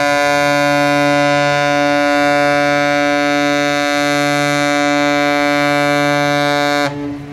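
Ship's horn sounding one long, steady blast of about seven seconds that starts and cuts off abruptly.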